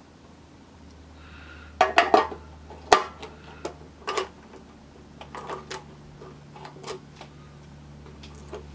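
Metal fuel filler cap of a Honda Super Cub C90 being set into the filler neck and turned to lock it: a run of sharp metallic clicks and clinks, loudest around two to three seconds in. A steady low hum runs underneath.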